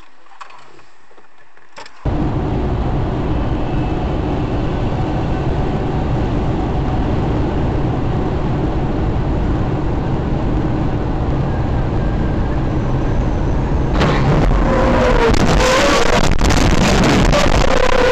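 Steady rumbling road and engine noise of a moving car, cutting in abruptly about two seconds in. Near the end a louder recording takes over, with wavering, bending tones over the noise.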